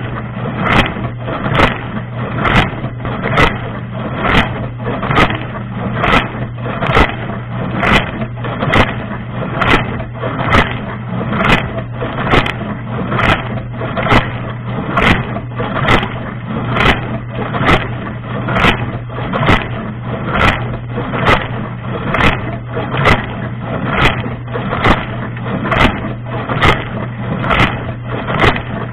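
Dishwasher running its wash cycle, heard from inside the tub: a steady motor hum under a rush of spraying water, with the spray arm's jets sweeping past and hitting in an even beat a little under twice a second.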